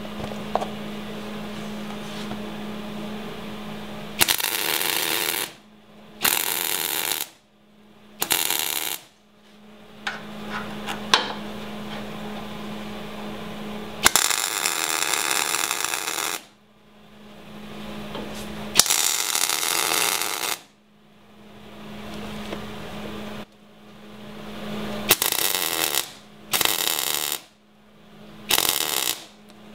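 MIG welder striking a series of tack welds on steel: eight crackling bursts of arc, from about half a second to two and a half seconds long, with short pauses between them.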